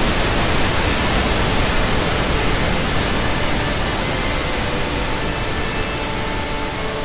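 Television static: a loud, steady hiss of white noise that eases off slightly toward the end, with faint steady tones showing through in the last couple of seconds.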